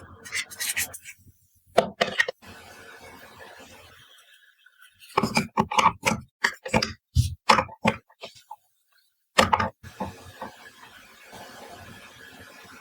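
Toy food pieces being handled and set down: a run of sharp clicks and taps, densest in the middle, with softer handling sounds near the end.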